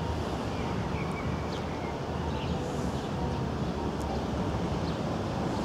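Steady outdoor city background: a low rumble of distant traffic with wind on the microphone, and a few faint high chirps.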